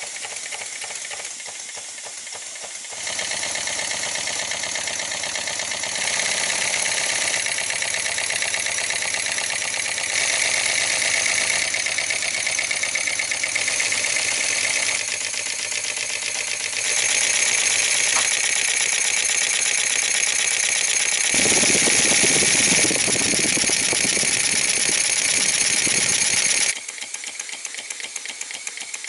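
Single-cylinder vertical model steam engine running fast, with rapid, even exhaust beats and hiss. The sound gets much louder a few seconds in, shifts in level several times, and drops back a couple of seconds before the end.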